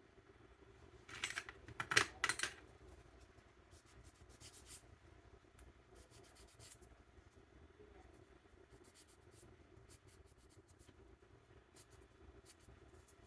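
Small plastic model parts being handled on a workbench: a brief burst of scratchy rustling and clicking about a second in, then scattered light ticks.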